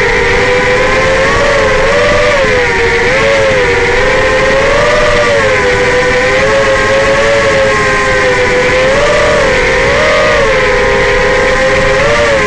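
Racerstar BR2205 2600KV brushless motors and Dalprop propellers on an FPV racing quad whining, the pitch rising and falling every second or so as the throttle changes, over a steady hiss.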